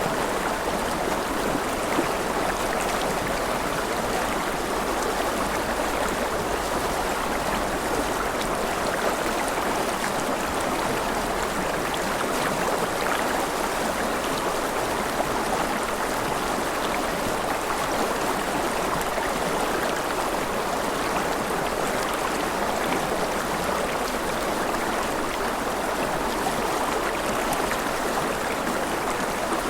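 Gentle rain falling steadily: an even, unbroken rush of water that holds the same level throughout.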